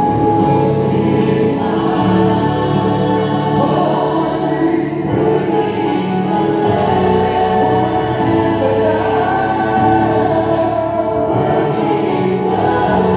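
A mixed group of women, men and children singing a gospel song together into microphones, amplified through a PA system.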